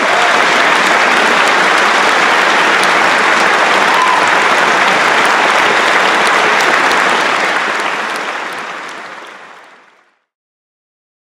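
Audience applause, loud and steady, fading out over the last few seconds.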